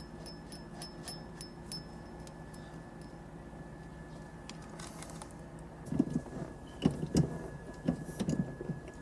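Metal parts being handled and fitted on a car's steering column: quick light clicking for the first two seconds, then irregular small knocks and clinks starting about six seconds in, over a faint steady hum.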